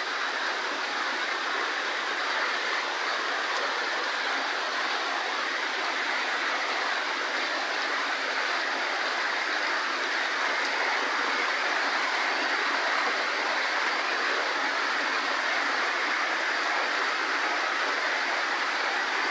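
Heavy typhoon rain pouring steadily onto leaves and wet ground, a dense, even hiss with no breaks.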